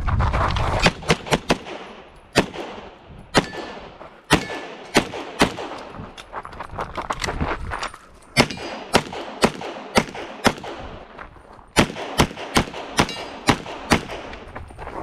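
Pistol shots fired in rapid succession during a practical-shooting (IPSC) stage: many sharp reports, mostly in quick pairs and short strings, broken by brief pauses of about a second. A low rumble sits under the first second.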